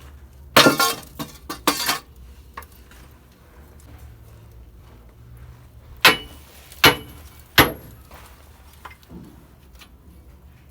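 Sharp metal knocks and clinks with a ringing tail: a quick cluster of rattling knocks about half a second in, then three single ringing strikes roughly seven-tenths of a second apart later on.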